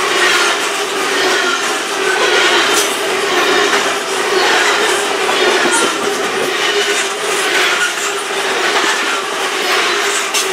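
Coal cars of a CP freight train rolling past close by: steady rumble of steel wheels on rail with scattered sharp clicks and a thin squeal from the wheels.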